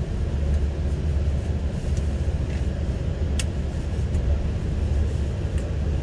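Steady low rumble of engine and road noise inside a moving tour bus, with one sharp click about three and a half seconds in.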